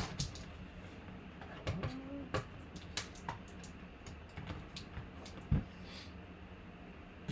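Fingernails picking and scratching at the plastic wrap on the end of a baseball bat, trying to catch an edge: irregular small clicks and crinkles, with a sharper tap about five and a half seconds in.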